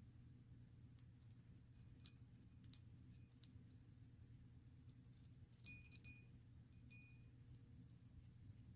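Small metal screws and a driver being handled on an RC beadlock wheel: scattered faint clicks, then two sharper metallic clinks with a brief ring about two-thirds through, over a faint low hum.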